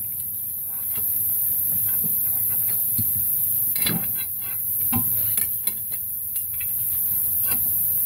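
A few light metallic clicks and knocks, most between about four and seven and a half seconds in, as a heavy truck wheel is worked onto its hub studs with a pry bar. Under them runs a steady hiss and low rumble.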